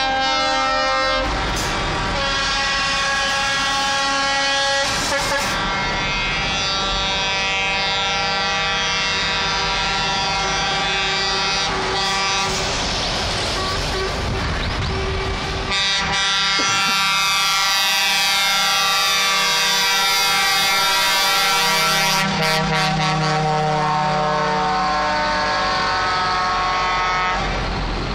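Truck air horns sounding almost without pause as a convoy of show trucks drives past, several multi-tone horns overlapping and changing every few seconds. In the second half their pitches slide as the trucks pass, over the rumble of the trucks' engines.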